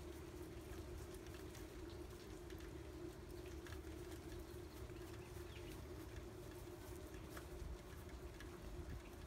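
Rain pattering softly, with scattered drops ticking, over a steady low hum.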